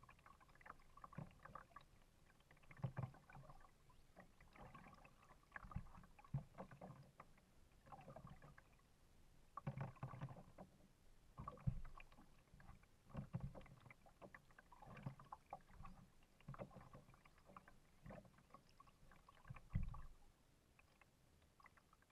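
Kayak paddle strokes in calm water: the blade dips and pulls with soft splashes, drips and low knocks, about one stroke every one and a half to two seconds. The strokes stop near the end.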